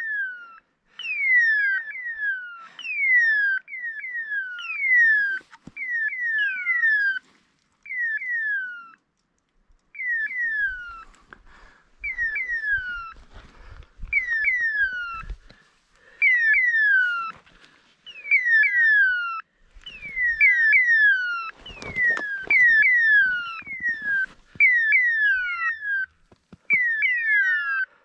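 Dog's beeper collar sounding its point-mode signal: short falling whistle-like tones repeated in clusters of two or three, over and over, the sign that the dog is holding a point. Faint crunching of steps on rocky ground underneath in the middle.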